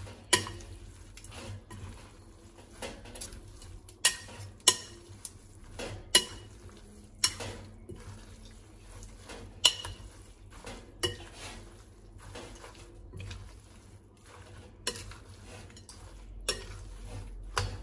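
A metal spatula tossing and stirring rice vermicelli salad in a glass bowl, knocking and scraping against the glass in irregular clinks, about one a second, some briefly ringing.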